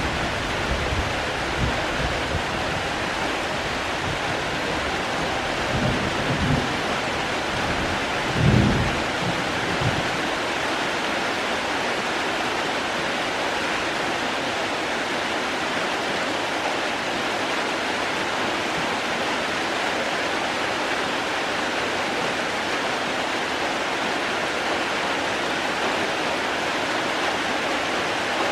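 Steady rain, an even hiss. Several short low rumbles come through in the first ten seconds or so, the strongest about eight and a half seconds in.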